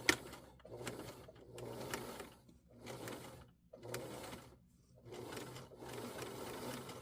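Sewing machine stitching through the denim of a jeans zipper fly. It runs in about four short runs with brief pauses between them, after a sharp click at the start.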